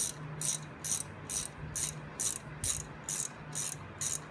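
Ratchet wrench clicking in quick back-and-forth strokes, about two a second, running down the rocker box bolts on a Harley-Davidson Sportster engine, over a steady low hum.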